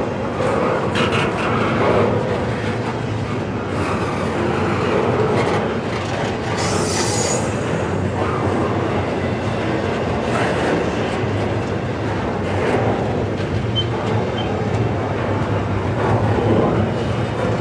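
Double-stack intermodal well cars of a freight train rolling slowly past: steady rumble and clatter of steel wheels on the rails, with a short high wheel squeal about seven seconds in.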